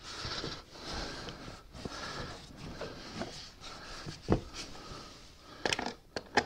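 Faint handling noises as the plastic air cleaner box lid is seated and pressed down, with a few light knocks a little past four seconds in and again near the end.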